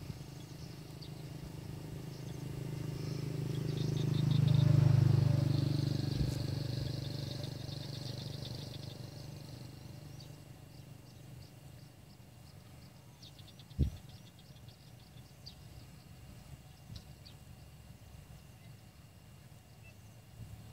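Birds chirping, with a motor passing close by that swells to its loudest about five seconds in and fades away over the next few seconds. A single sharp knock comes about fourteen seconds in.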